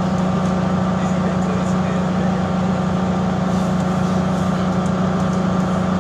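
Mercedes-Benz O405G articulated bus engine running at a steady pitch, a constant droning hum. The uploader describes the engine as bad and making a weird sound.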